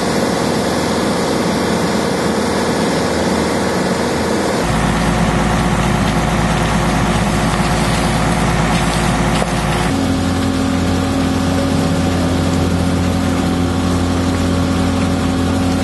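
Fire-engine diesel engines and pumps running steadily, a constant engine hum with several held tones that changes abruptly twice.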